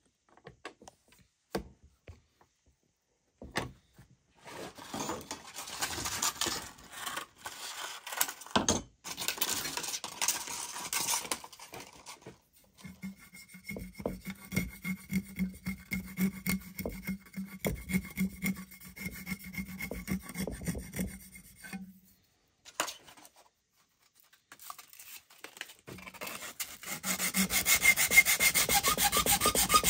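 Small hand saw cutting a slot into a wooden clothespin blank held in a bench vise, in rasping back-and-forth strokes about two a second. Near the end, sandpaper rubs quickly back and forth on the wood.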